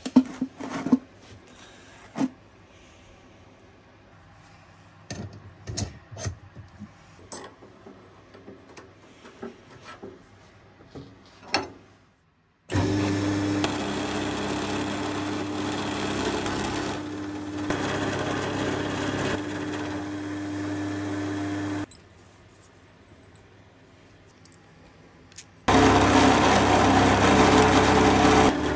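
Round-column milling machine running with an end mill cutting a steel bar: a steady motor hum with cutting noise. It starts abruptly about halfway through, stops some nine seconds later, and starts again near the end. Before it, scattered clicks and knocks of tools being handled.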